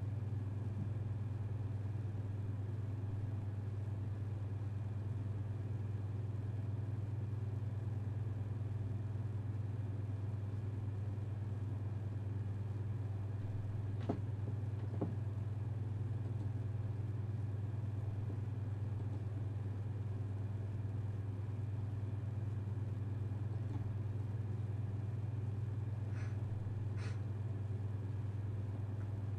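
A steady low hum with fainter constant tones above it, unchanging throughout. Two faint clicks come about halfway through, and two brief high sounds near the end.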